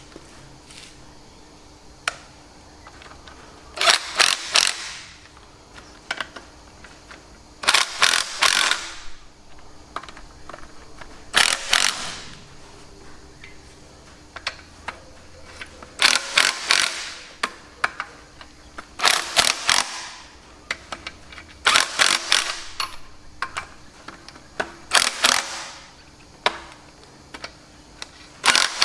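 Cordless impact driver hammering in eight bursts of about a second each, winding in jacking bolts to push the front housing off a tractor gearbox. Faint metal clicks come between the bursts as the tool is moved from bolt to bolt.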